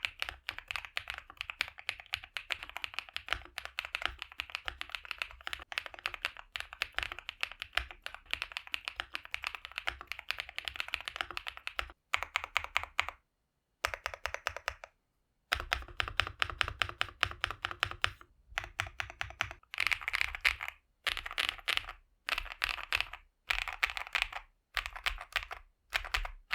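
Typing on an Akko Mineral 01 mechanical keyboard in its stock configuration with the foam layers in, fitted with hand-lubed Akko Creamy Yellow U1 linear switches on an FR4 plate. Fast, continuous typing runs for about twelve seconds, then after two brief silences it comes in separate short bursts of keystrokes with quiet gaps between.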